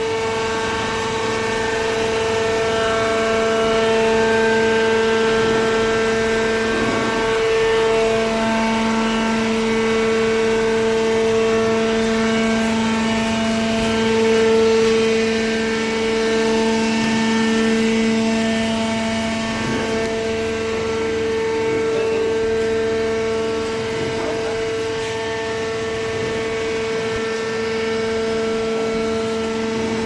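Horizontal hydraulic paper baler running: a steady machine whine from its motor and hydraulic pump, with a lower hum joining about a quarter of the way in.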